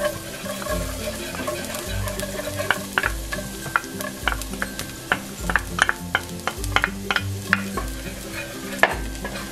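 Chopped garlic sizzling in hot oil in a stainless steel pan, a steady hiss with many sharp crackles and pops. Background music with a repeating bass beat plays underneath.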